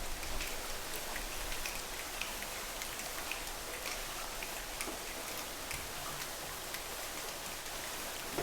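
Steady rain-like patter: an even hiss of many small drops, dotted with light scattered ticks.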